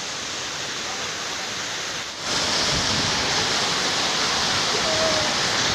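Waterfall: a steady rush of falling water that becomes louder and brighter a little over two seconds in.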